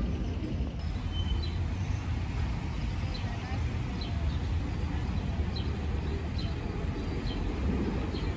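Tram running past with a steady low rumble, with small birds chirping now and then.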